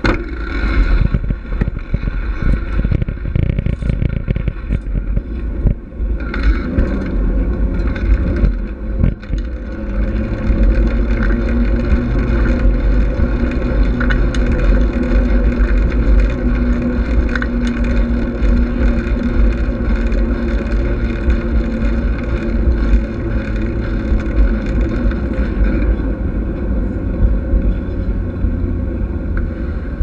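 Bicycle ride heard from a bike-mounted camera: wind buffeting the microphone and tyres rumbling over the path. It is rough and jolting for the first ten seconds or so on gravel, then a steadier hum on smooth concrete.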